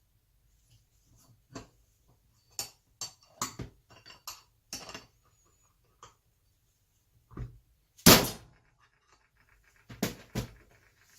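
Light clicks and knocks of tools and a carburettor being handled on a workbench, then one sharp blow from a heavy plastic hammer about eight seconds in, tapping a plastic spacer home onto an SU carburettor's throttle shaft. A couple more knocks follow near the end.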